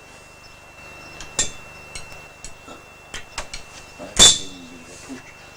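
A few sharp metallic knocks and clinks from the heavy home-built bandsaw being handled and set down, the loudest about four seconds in with a short ring after it.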